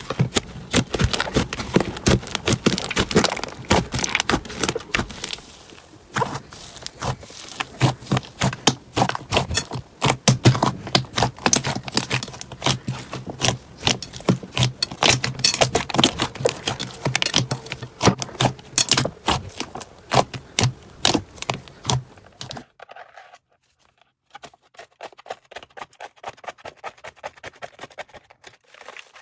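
Slime being squeezed and pressed by hand, giving dense, rapid crackling and popping clicks. About 23 seconds in it cuts off abruptly and quieter, softer clicking slime sounds follow.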